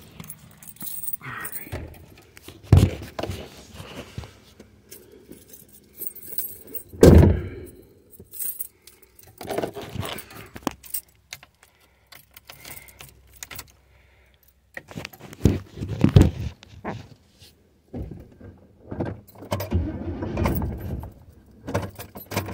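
A large ring of keys jangling as keys are sorted and tried in the steering-column ignition of a 1986 Chevrolet Caprice Classic. Irregular knocks and clunks come in between, the loudest about seven seconds in.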